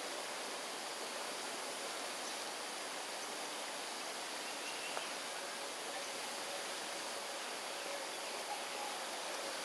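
Steady, even outdoor background noise like rushing water or distant hiss, with no calls from the owl. There is one faint click about five seconds in.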